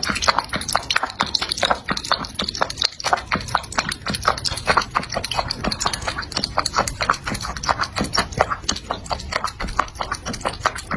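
Rapid, uneven clicking or tapping, several sharp clicks a second, steady in pace throughout.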